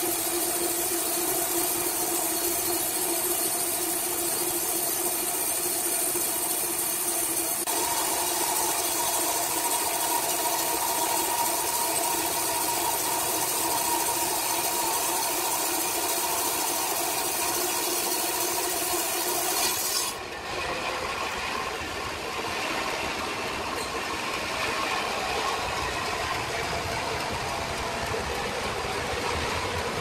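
Horizontal band sawmill running and cutting lengthwise through a large log: a steady machine hum with the rasp of the band blade in the wood. About twenty seconds in, the sound changes abruptly to a rougher, noisier run.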